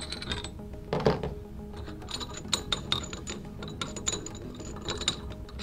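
Metal bolts clicking and rattling as they are pulled out of a pipe flange joint by hand, with a louder metal clunk about a second in, over light background music.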